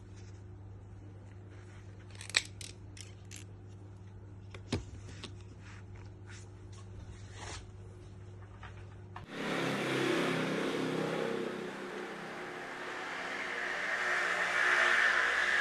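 Packaging of a vinyl toy figure being handled and unpacked: scattered clicks and scrapes over a low hum, the sharpest click about two seconds in. About nine seconds in, a louder, even rushing noise abruptly takes over.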